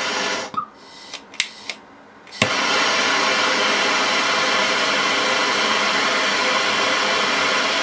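Vortex brazing torch burning MAP gas with a steady rushing hiss. About half a second in the flame is shut off, a few trigger clicks follow, and with a sharp click about two and a half seconds in it relights and burns steadily again.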